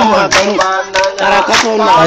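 A man singing or chanting through a megaphone, his voice cut off sharply above the upper range, over sharp percussive strokes that land about every half second to second.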